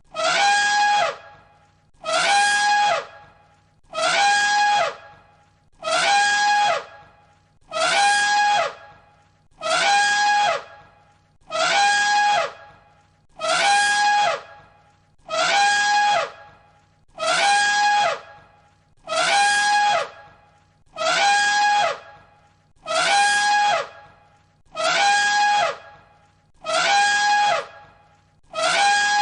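An elephant trumpeting: one identical high, brassy call about a second long, falling in pitch at its end, repeated as a loop about every two seconds, some sixteen times.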